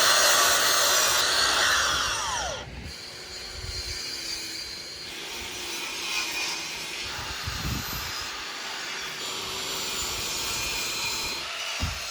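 Electric power saw running up to speed, cutting a wood board and winding down, loudest over the first three seconds. Quieter work noise follows, with two dull knocks, one midway and one near the end.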